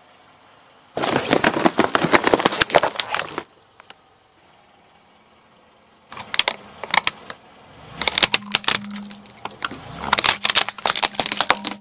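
Car tyre rolling over and crushing things: a cardboard toy box crumpling and crackling for a couple of seconds, then a rigid plastic carrier cracking and snapping under the wheel in two bouts of rapid cracks.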